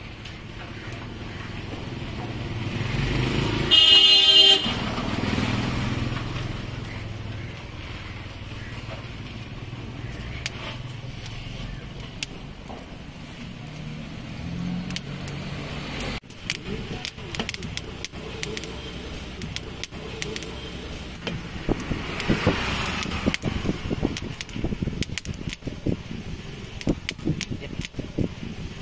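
Street traffic, with a passing vehicle sounding one short horn blast about four seconds in. From about halfway on, rapid irregular crackling and clicking.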